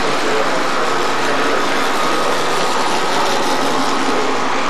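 O-scale model train of circus flatcars rolling along the track: a steady rolling rumble with a faint steady whine.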